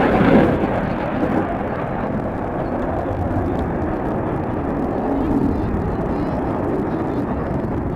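Airplane flying past, a steady engine rumble that swells briefly near the start.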